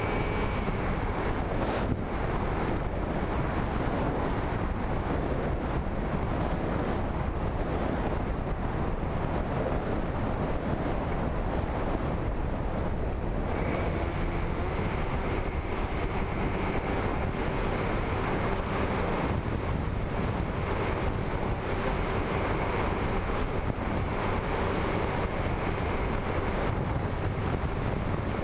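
Wind rushing over the onboard camera of a flying RC wing in gusty wind, with the wing's propeller motor humming steadily underneath. The motor hum drops out about a second in, leaving the wind and a thin high whine, and comes back about halfway through.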